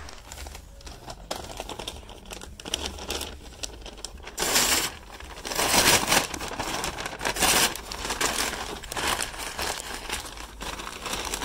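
Brown paper grocery bags being crumpled and torn apart by hand: a steady crackle of paper, with three louder rips in the middle.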